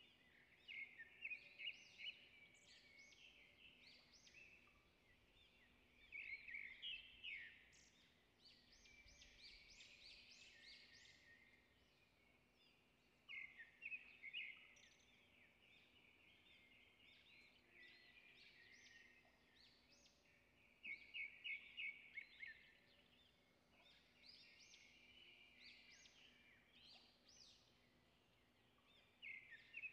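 Faint songbird singing: phrases of quick repeated chirps every few seconds.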